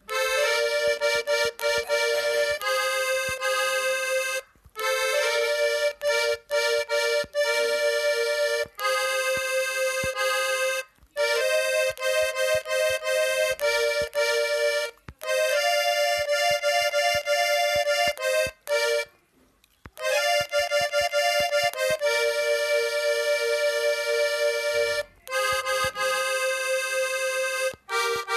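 Sampled button-accordion tones from a phone accordion app playing a melody in two-note harmony, without bass. The notes are held and then cut off sharply, with a short pause a little over two-thirds of the way through.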